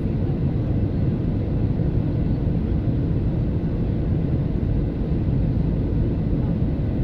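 Deep, steady cabin noise of a passenger airliner in flight: engine and airflow noise heard from inside the cabin.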